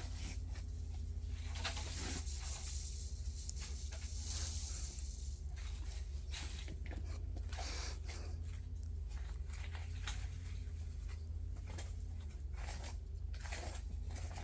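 Potting mix being spread over seeded plug trays: irregular rustling and scraping of soil, over a steady low hum.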